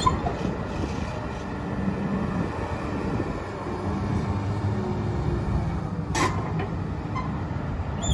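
Komatsu excavator's diesel engine running steadily with a low rumble, and a single sharp knock about six seconds in.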